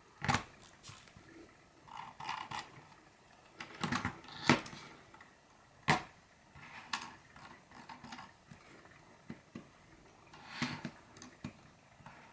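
Logitech computer mouse scroll wheel being rolled in short bursts of ticking, mixed with a few louder single sharp clicks.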